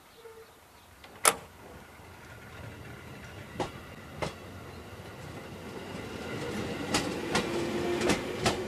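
Electric local train pulling away from a station platform, its running sound growing steadily louder as the cars pass. There is one sharp clank about a second in, then wheels clacking over rail joints, the clacks coming closer together as the train gathers speed.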